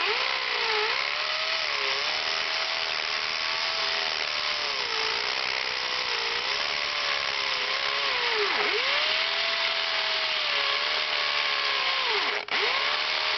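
DeWalt DWD520 hammer drill boring into aggregate concrete, its motor whine sagging in pitch again and again as it loads up under pressure, with a brief stop about twelve seconds in.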